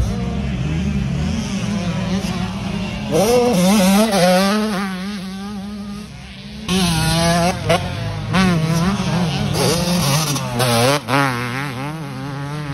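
Motocross bike engine revving up and down in quick surges, its pitch rising and falling over and over. It drops off about six seconds in and comes back louder a moment later.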